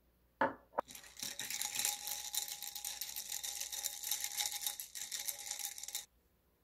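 A porcelain cup set down on the table with a knock, then ice cubes rattling and clinking rapidly against a tall glass as an iced latte is stirred for about five seconds, stopping abruptly.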